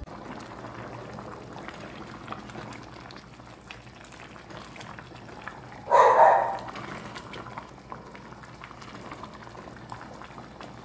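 A pan of canjica (white hominy corn in milk, condensed milk and coconut milk) simmering and bubbling while it is stirred with a silicone spatula, with faint light taps against the pan. About six seconds in, a short loud sound rises over it.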